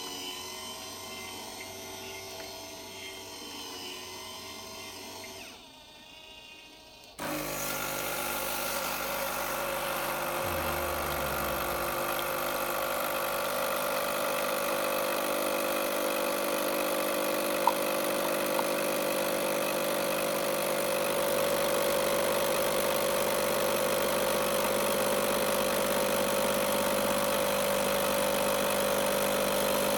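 A steady mechanical hum, then about seven seconds in a motor-driven machine starts abruptly and runs steadily with a strong even drone.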